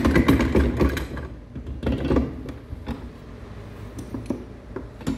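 Hand tools and metal engine parts being handled during assembly of a Peugeot 103 moped engine. There is busy clattering for about the first second, then scattered light clicks and knocks.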